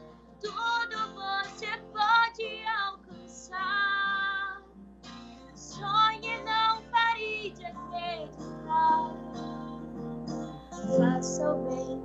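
Music: a teenage girl singing with acoustic guitar strumming behind her, her voice sliding and wavering through held notes.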